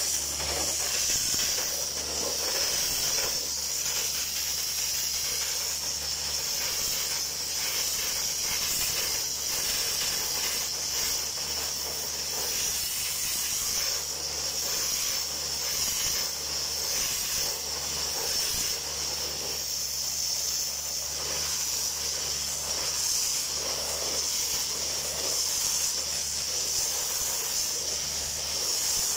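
Sandblasting nozzle blasting abrasive grit with compressed air, a steady unbroken hiss, stripping the zinc coating off metal plates. A low steady hum runs underneath.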